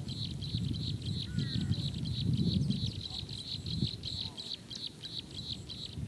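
Rapid, high-pitched chirping that keeps going steadily, several chirps a second, over a low rumble that swells about two to three seconds in.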